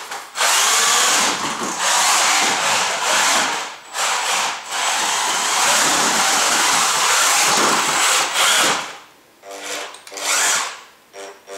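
Featherweight combat robot's electric drive motors whining through their gearboxes as it drives, in long runs with brief stops, then several short bursts near the end.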